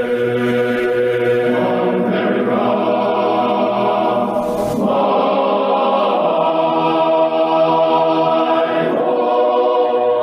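Choir singing slow, held chords that change every few seconds.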